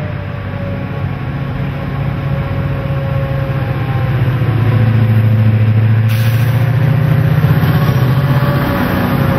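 CLF and CLP class streamliner diesel-electric locomotives working hard up a steep grade with a freight train, their engines giving a steady low drone. The drone grows louder about halfway through as the locomotives pass close by.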